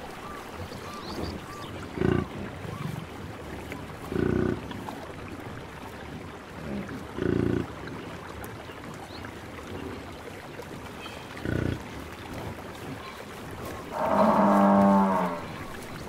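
African buffalo grunting: four short, low grunts a few seconds apart, then a louder, drawn-out moo-like bellow lasting about a second near the end.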